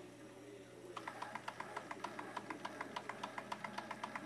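Toy live steam engine starting up about a second in, then running with a quick, even ticking beat of about six to seven strokes a second: its cylinder working on freshly raised steam pressure.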